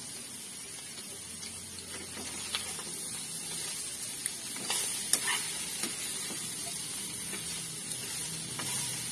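Chicken adobo sizzling in a wide pan while it is stirred with a spatula, which clicks and scrapes against the pan in scattered strokes from a couple of seconds in, loudest around the middle.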